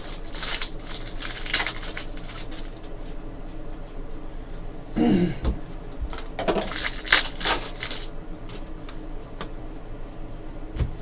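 2014 Panini Contenders football trading cards being handled and flipped through, rustling and sliding against each other in irregular bursts. The handling is busiest in the first couple of seconds and again about six to seven and a half seconds in.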